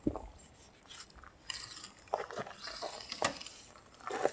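Fillet knife cutting along the backbone of a large fish: soft crunching and scraping as the blade works through the flesh against the bones, with a few sharp clicks.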